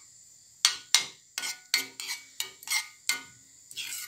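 Metal spoon scraping and clinking against a stainless steel pan, stirring a thick tomato sauce as it is sautéed: a quick series of strokes, about three a second, starting about half a second in.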